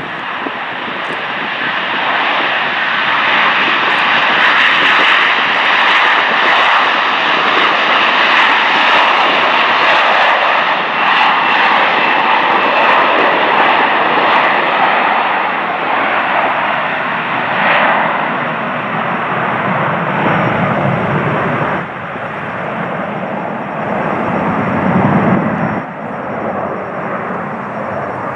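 Air China Airbus A330-300's jet engines at takeoff power during the takeoff roll and lift-off: a loud, steady rush of jet noise that builds over the first few seconds and turns deeper in the second half.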